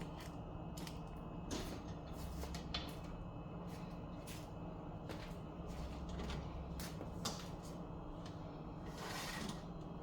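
Faint clicks, taps and scrapes of a serving utensil against a dish and plate as a piece of taco casserole is lifted onto the plate, with a short swish about nine seconds in and a steady low hum underneath.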